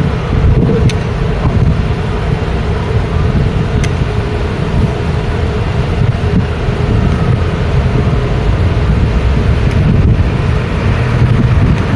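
Busy road traffic: a steady, loud rumble of vehicle engines passing continuously, with a sustained engine hum and a few faint clicks.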